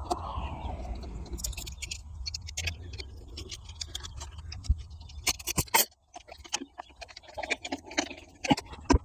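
Irregular metallic clicks, taps and scrapes of hand tools working on a boat engine's exhaust fittings. A low rumble underneath drops out about six seconds in.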